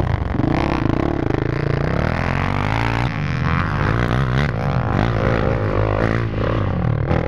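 Dirt bike and ATV engines revving hard during a steep hill climb, the pitch rising and falling with the throttle.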